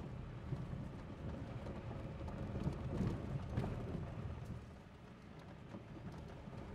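A vehicle driving on a rough gravel dirt road, heard from inside the cab: a low rumble of tyres and suspension with scattered small clicks and rattles of gravel. It grows louder about halfway through, then eases off.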